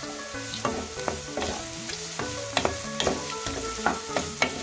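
Chopped onions and dried red chillies sizzling in hot oil in a non-stick kadai while a wooden spatula stirs them, with irregular sharp scrapes across the pan.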